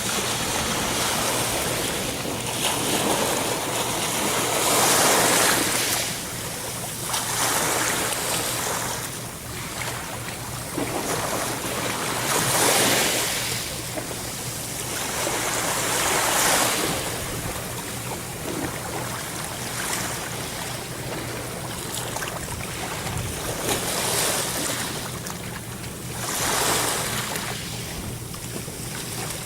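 Ocean waves breaking on a shore: a continuous wash of surf that swells into a louder crash every few seconds and then falls back.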